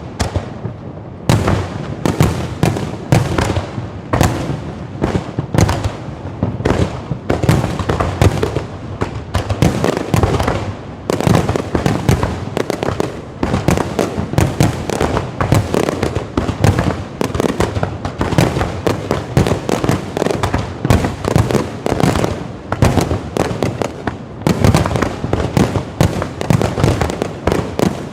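Low-altitude fireworks going off in a continuous barrage: many sharp bangs and crackles a second, overlapping one another, with a short lull about a second in.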